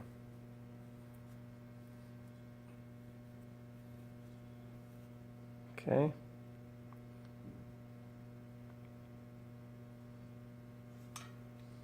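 Steady low electrical hum, with a couple of faint ticks.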